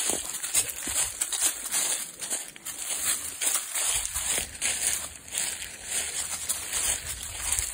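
Footsteps of a person and a dog crunching and rustling through dry fallen leaves, an irregular run of crackles.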